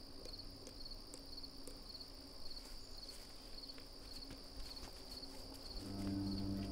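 Insects chirping: a steady high buzz with short chirps repeating about twice a second. Near the end a low sustained tone comes in underneath.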